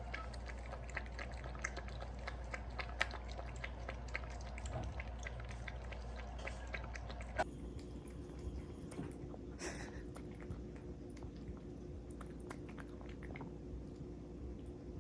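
A cat chewing and crunching food: a run of small, quick crunching clicks, thinning out after about seven seconds.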